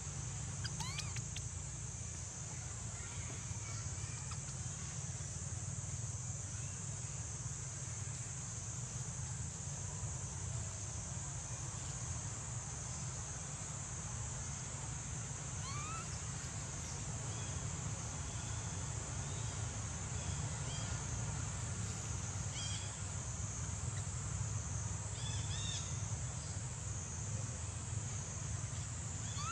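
Outdoor ambience: a steady high-pitched insect drone, a low rumble underneath, and a few short rising chirps from birds or small animals now and then.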